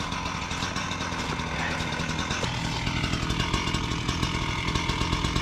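A small petrol engine running steadily at a constant speed, with an even buzzing drone.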